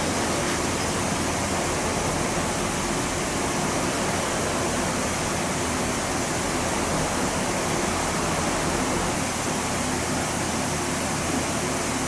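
Electric pedestal fan running, a steady, even noise of moving air.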